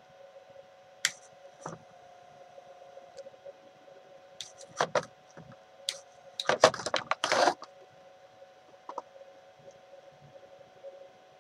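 Sharp clicks and taps from small parts being handled on a workbench, with a quick burst of clicks about six and a half to seven and a half seconds in. Under them runs a faint, steady electrical hum.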